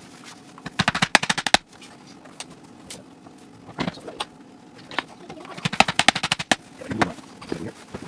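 Hammer tapping nails into the thin wood of a birdhouse: a quick run of rapid taps about a second in, another around six seconds, and a few single knocks between.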